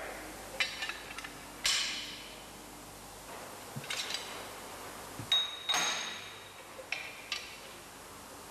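Irregular light metal clinks and knocks as a sheet-metal tray and a small steel former are handled and set down on a sheet-metal folder, one strike about five seconds in ringing briefly with a high ping.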